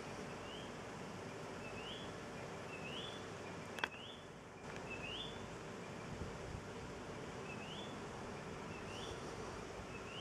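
A small animal's chirping call: short rising notes repeated about once a second over a steady outdoor hiss. A single sharp click just under four seconds in.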